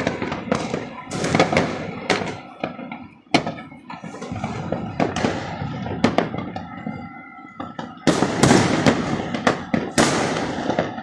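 Fireworks and firecrackers going off in a rapid, irregular string of sharp bangs and crackles. They become denser and louder in the last few seconds.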